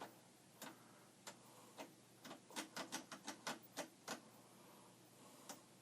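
A switch being clicked back and forth repeatedly, about a dozen faint sharp clicks, quickest in the middle. The switch is suspected of being faulty and 'in some distress'.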